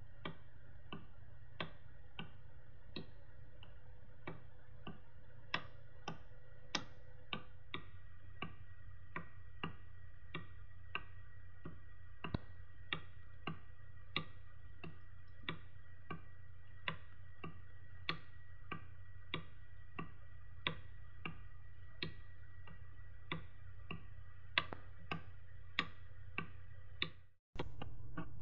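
A paper pendulum clock's escapement ticking steadily, about three ticks every two seconds, over a low steady hum. The sound cuts out briefly near the end.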